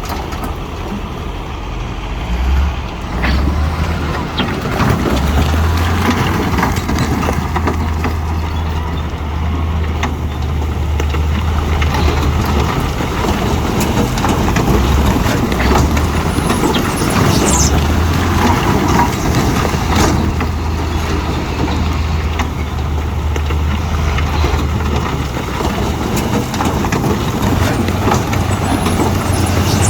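Heavy diesel earthmoving machinery running under load: a deep engine drone that surges and eases several times, with scattered metallic knocks and clanks.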